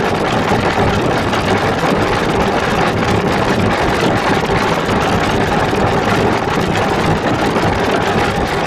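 Loud, steady droning noise from a heavily processed sound-effect edit: two copies of the audio layered, one pitched up and one pitched down, with a 'monster' voice filter.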